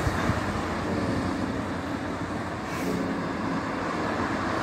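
Steady road traffic noise from a city street, an even hum of passing cars.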